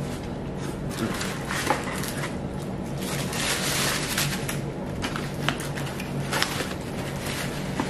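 Crinkling paper taco wrappers being pulled open, mixed with the crunch of hard-shell tacos being bitten and chewed. A low steady hum runs underneath.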